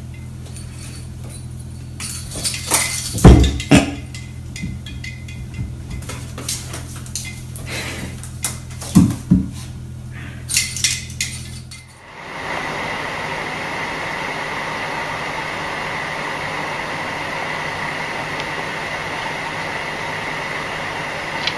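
Light clinks and taps against window glass, with a low steady hum underneath, as kittens bat a ball toy hanging on a string. About twelve seconds in the sound changes abruptly to a steady hiss with a faint high whine.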